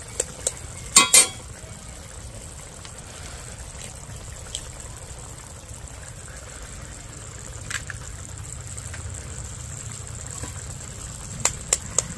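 Raw eggs tapped against a metal spatula and cracked into simmering masala gravy in a metal karahi: a few sharp taps, a loud pair about a second in and a cluster near the end, over the low steady bubbling of the gravy.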